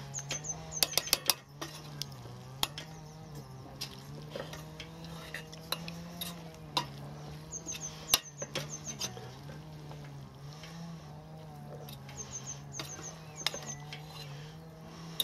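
A metal spaghetti server stirs and tosses pasta in a stainless steel pot, giving irregular clinks and scrapes against the pot. They are thickest in the first second or two and again about eight seconds in. Under them runs a steady low engine drone that wavers in pitch.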